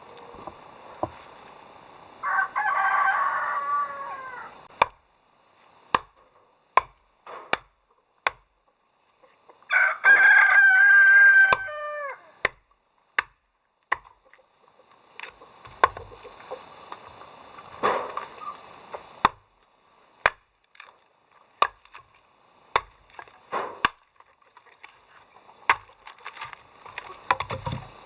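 Rooster crowing twice, about two seconds in and again around ten seconds in, each crow a couple of seconds long. Sharp clicks and knocks come at irregular intervals through the rest.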